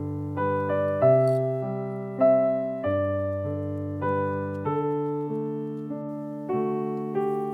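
Background piano music: a slow melody of single notes over a low bass line, each note struck and then dying away.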